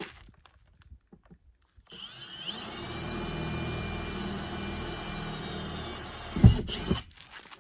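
Cordless drill with the hole-saw arbor's pilot bit pre-drilling a centre hole in a siding light block. It spins up about two seconds in, runs steadily for about five seconds, then gives a loud knock and stops.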